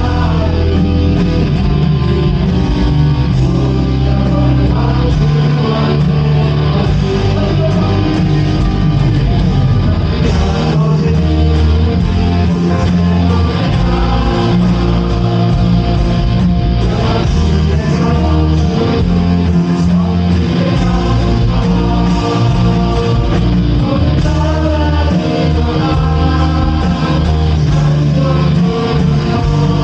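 Live worship band playing a praise song, with guitar, bass and singing.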